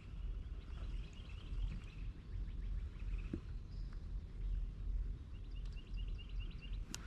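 Outdoor ambience with small birds chirping on and off, including a quick run of chirps near the end, over a steady low rumble. A sharp click comes at the very end.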